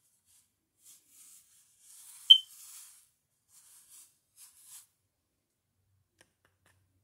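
Faint scratchy strokes of a paintbrush on paper, in several short runs. About two seconds in comes one short, high-pitched beep, the loudest sound.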